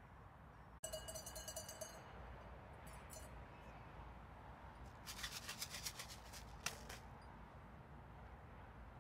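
Short bursts of rapid rattling. The first, about a second in, carries a ringing tone. A few faint clicks follow, and a longer rattling burst comes around the middle.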